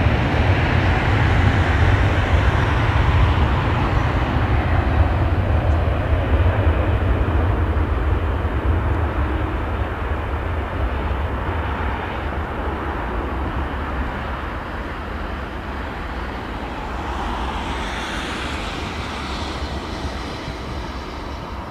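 Airbus A330-900neo's Rolls-Royce Trent 7000 jet engines at takeoff thrust during the takeoff roll: a loud, steady rush of jet noise over a deep rumble, fading slowly as the aircraft accelerates away.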